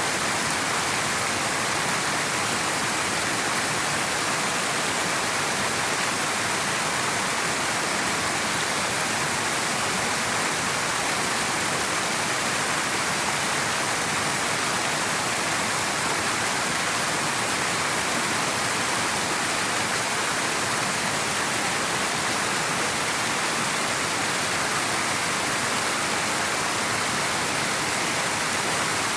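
River water flowing, a steady rushing that stays even throughout.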